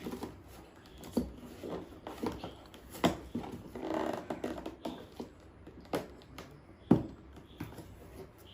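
Cardboard box and packing material handled during the unboxing of a soundbar: rustling with scattered sharp knocks, the loudest about three, six and seven seconds in.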